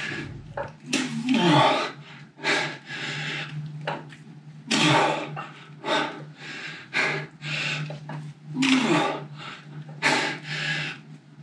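A man breathing hard through repeated dumbbell raises: short, forceful, noisy exhalations about once a second, a few with a brief strained grunt. A steady low hum runs underneath.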